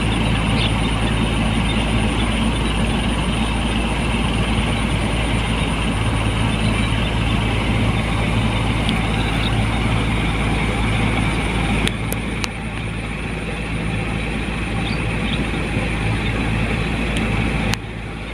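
Rice combine harvester running steadily at working speed, a constant low engine hum under a broad mechanical hiss. The sound changes abruptly twice, about twelve seconds in and near the end.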